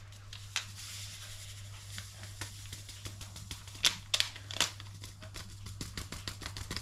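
Foil yeast sachet crinkling as it is shaken and tapped to empty the yeast into a jug of warm water: scattered sharp crinkles and ticks among quieter rustling, a louder cluster about four seconds in.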